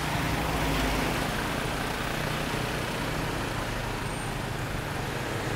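Motorbike engine running steadily at low speed in dense city traffic, over a wide hiss of surrounding traffic.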